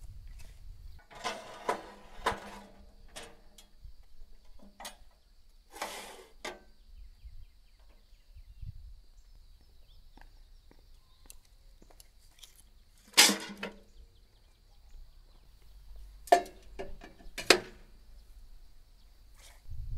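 Scattered short clatters and knocks of handling, several seconds apart, over a faint steady high-pitched tone.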